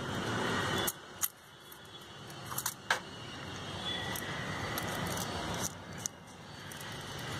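Light metallic clicks and clinks of a spanner and feeler gauge against the valve rocker arms of a Maruti 800 engine while the tappet clearances are set. There are a few sharp clicks about a second in and again near three seconds, over a steady background hiss.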